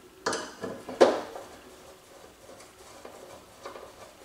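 Screwdriver work at the back of a flat-screen TV: two sharp knocks in the first second, then faint small clicks.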